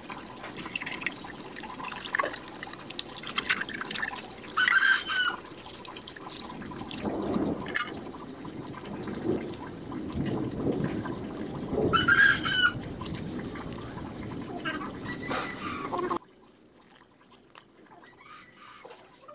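Water splashing and dripping while the ink-soaked foam pad from an Epson L3110 printer's waste ink tank is rinsed and squeezed by hand, with two short high squeaks along the way. The sound cuts off sharply about sixteen seconds in, leaving only a faint background.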